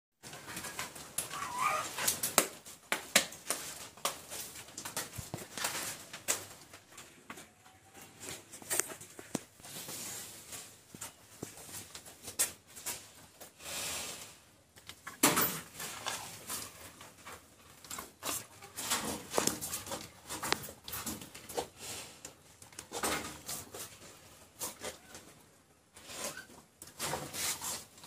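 Irregular knocks, clicks and rustles of cattle moving and feeding in a stall, with a brief chirping call about a second and a half in.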